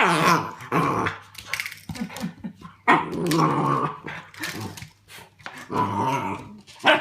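A puppy growling and yapping in several bouts of about a second each, with short pauses between.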